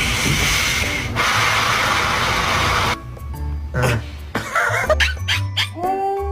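Background music with a beat. For the first three seconds a loud steady hiss lies over it, and near the end a long, steady held note begins.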